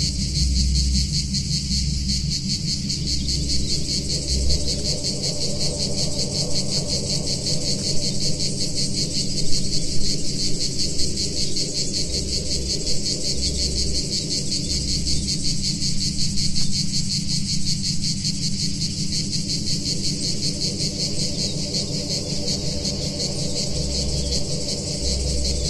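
Dense, steady high buzzing of cicadas from a field recording, layered over a low analog-synthesizer drone with soft, uneven bass pulses underneath.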